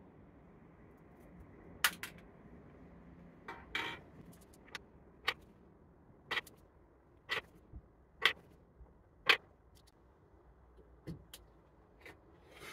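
About ten small, sharp metallic clicks at irregular intervals, from steel BBs being loaded into the back of the airgun revolver's cartridge shells.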